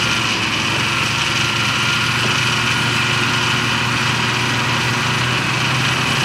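Snowmobile engine running at a steady speed, heard from on board while riding along a snow trail.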